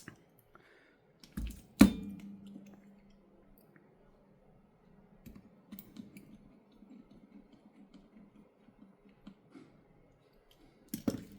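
Small clicks and taps of tools and parts being handled while a smartphone is reassembled, with one sharp knock about two seconds in followed by a faint low hum.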